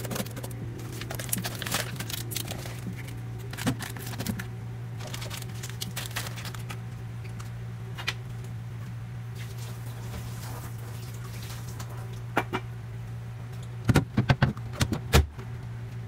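Plastic food containers and bagged frozen food being handled in a refrigerator's freezer compartment: scattered light clicks and rustles. A cluster of louder plastic knocks comes about two seconds before the end as the freezer's plastic flap door is shut, over a steady low hum.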